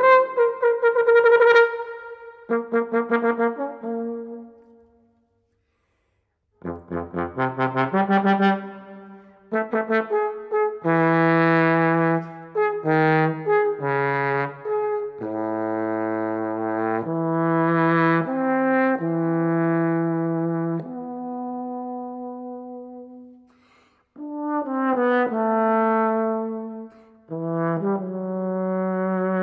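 Solo trombone playing. It opens with an upward slide into quick repeated notes that die away into about a second and a half of silence. Then come held notes and short figures across the low and middle range, with a brief break a few seconds before the end.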